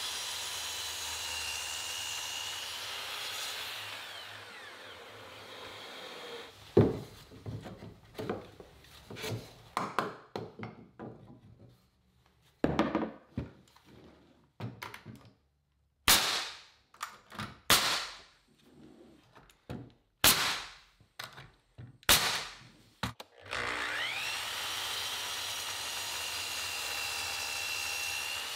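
Sliding compound miter saw running and cutting through a wooden board. Then come a series of sharp knocks and strikes of a pneumatic nailer nailing a stud to a sill plate, four of them loudest, with lighter knocks of the wood between. The saw then spins up again and cuts.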